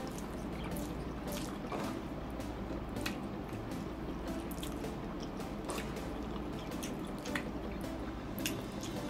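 Close-miked wet chewing of pork ribs and rice, with scattered moist mouth clicks and smacks every second or two.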